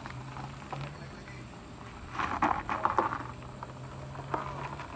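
A small front-wheel-drive car's engine running at a steady low hum as the car creeps over loose gravel and rutted dirt. About two seconds in comes a second-long burst of crackling gravel crunch under the tyres.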